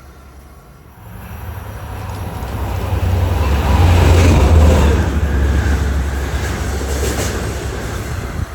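Long Island Rail Road train passing by: a rumble that builds from about a second in, is loudest around the middle, then eases off.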